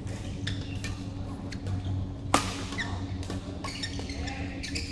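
Badminton rally: racket strikes on the shuttlecock come as sharp, irregular hits every half second or so, and the loudest, hardest hit lands about two and a half seconds in. A low, steady hum runs underneath.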